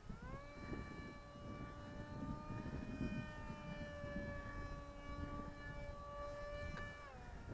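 The electric brushless outrunner motor and propeller of an RC foam parkjet whining in flight. The pitch rises about a third of a second in as the throttle opens, holds nearly steady, then drops near the end as the throttle comes back.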